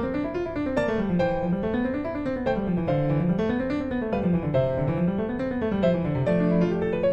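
Background piano music, flowing notes over a bass line that rises and falls in repeating waves.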